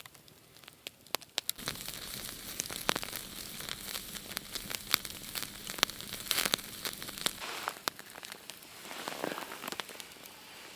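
Wood fire crackling with many sharp pops, over a steady hiss that starts about a second and a half in and stops about three-quarters of the way through.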